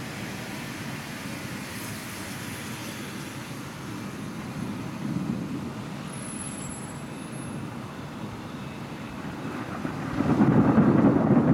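Low rumble of distant thunder, swelling into a louder roll of thunder about ten seconds in.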